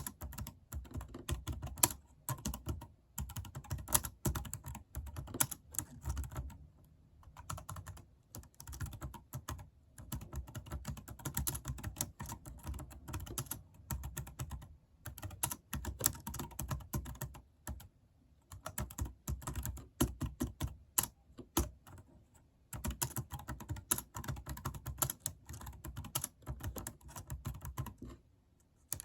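Fast typing on a computer keyboard: rapid key clicks in runs of a few seconds, broken by brief pauses, stopping shortly before the end.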